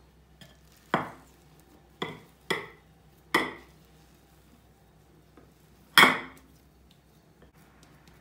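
Five sharp knocks, each with a short ring, as a glass mixing bowl is handled on a granite countertop while bread dough is tipped out of it. The last knock, about six seconds in, is the loudest.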